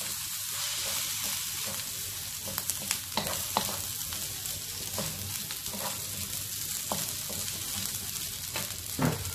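Egg fried rice sizzling in a hot stone-coated wok while it is stirred and mixed with a wooden spatula, freshly seasoned with soy sauce; a steady high sizzle with scattered light scrapes and taps of the spatula against the pan.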